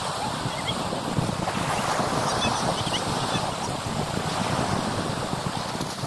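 Sea waves washing against a concrete pier, a steady surf noise with wind buffeting the microphone. A few faint, short, high chirps come through now and then.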